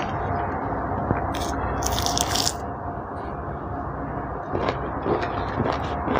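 An orange being pulled apart by hand, the peel and pith tearing with a hissing rip about two seconds in. Near the end come short wet clicks of juicy orange segments being bitten and chewed.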